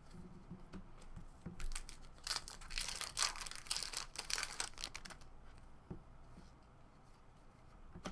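Foil wrapper of a baseball card pack being torn open and crinkled: a few light clicks, then about three seconds of dense tearing and rustling that dies down.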